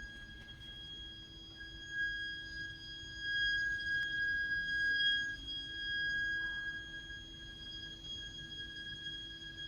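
Heat interface unit (HIU) and its heating pipework giving off a loud, continuous, shrill high-pitched shriek: one steady whistling pitch with overtones above it and a fainter low hum beneath. It is an abnormal plumbing fault noise in the heating system.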